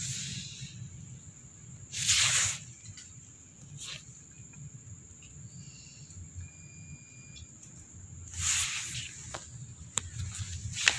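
A person undergoing gurah, a herbal nasal treatment, breathing out forcefully twice about six seconds apart, each a short hissing burst, with a few sharp clicks between, as the loosened mucus is cleared.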